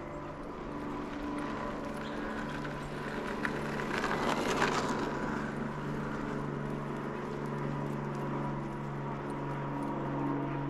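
A vehicle engine running steadily, with a brief louder rush of noise about four to five seconds in.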